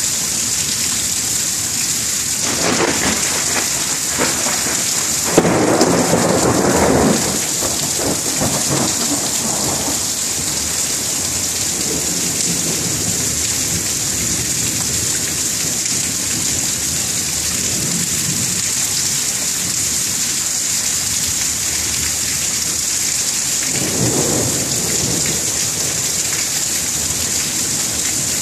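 Thunderstorm: steady rain hissing throughout, with thunder rumbling about three seconds in, a sharp crack and louder rumble about five seconds in, and a further rumble near the end.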